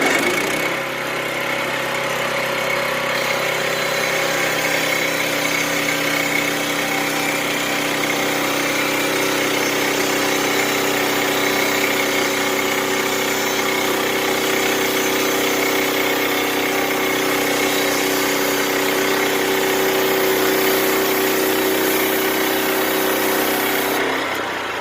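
Sawmill running through a cut in a cherry log: a steady engine drone with a high whine from the blade, dropping off near the end as the cut finishes.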